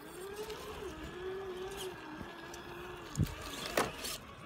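Traxxas TRX-4 RC rock crawler's electric motor and geartrain whining at low crawling speed, the pitch dipping and rising as the throttle is fed in over the rocks. A thud a little after three seconds in and a sharp knock just after it, the truck bumping against rock.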